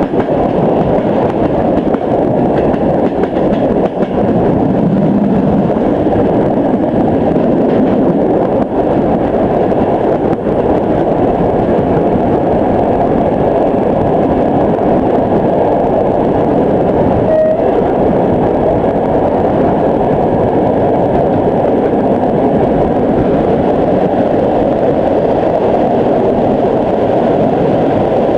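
Passenger train running at speed: the steady running noise of the coach's wheels on the rails, heard at an open window of the carriage. A short high tone sounds once about 17 seconds in.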